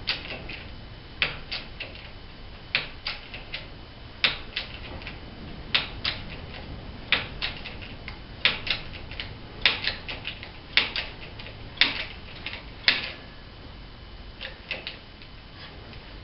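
Hydraulic bottle jack on a shop press being pumped by hand: sharp metal clicks from the pump handle in groups of two or three, about every one and a half seconds, dying away near the end.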